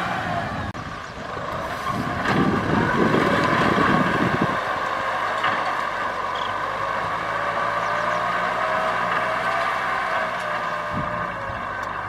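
Kubota M6040SU tractor's four-cylinder diesel engine running steadily under load while working a field, with a slightly wavering whine. A louder low rumble comes from about two to four seconds in.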